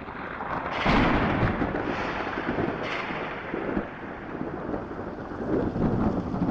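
Thunder rumbling over falling rain, loudest about a second in, with another swell near the three-second mark.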